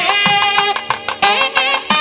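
Traditional Indian instrumental music: a wind melody with sliding, ornamented notes over drum strokes.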